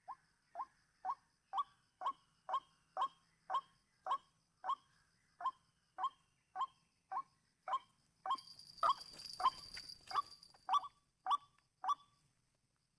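White-breasted waterhen calling: a run of short, upward-sweeping notes repeated about twice a second, stopping near the end. From about two-thirds of the way in, a steady high hiss sounds along with them.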